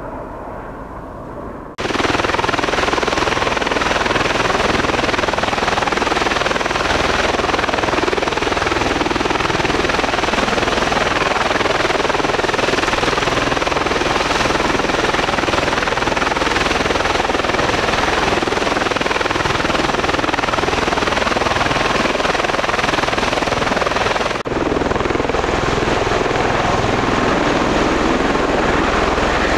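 Bell Boeing V-22 Osprey tiltrotor, its two Rolls-Royce T406 turboshaft engines and big rotors running loud and steady with a deep rumble beneath. The sound is quieter for the first two seconds, then jumps abruptly to full loudness, with a brief break about 24 seconds in.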